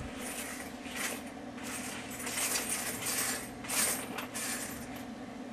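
Small metal handling noises from a plastic-and-metal pin header strip and a pair of diagonal cutters: several soft scrapes and light clinks, over a steady low hum.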